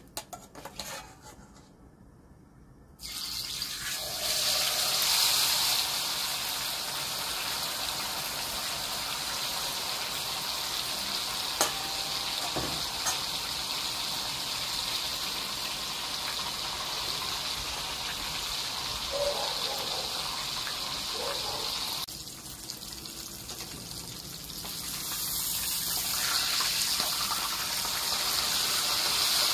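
Whole tilapia going into hot cooking oil about three seconds in, setting off a loud, steady sizzle of deep pan-frying. The sizzle drops back about three quarters of the way through and swells again near the end as the fish is worked with a spatula.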